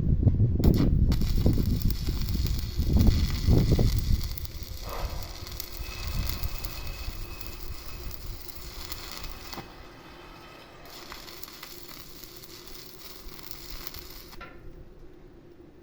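Arc of a stick welder burning a 7018 electrode, a steady crackle and sizzle that cuts off abruptly near the end. A loud low rumble runs under it for the first few seconds.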